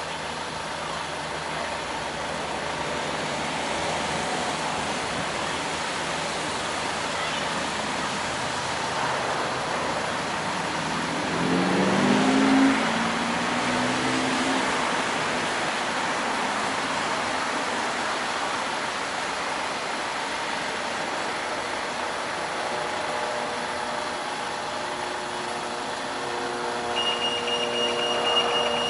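Road traffic passing a traffic-light pedestrian crossing, with one louder vehicle accelerating about 12 seconds in. Near the end the crossing's pedestrian signal starts beeping with a steady high-pitched tone, signalling that it is safe to cross.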